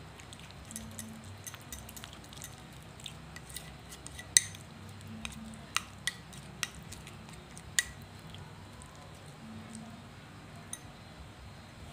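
Metal spoon stirring thick avocado paste in a ceramic bowl, clinking sharply against the bowl several times, loudest about four seconds in.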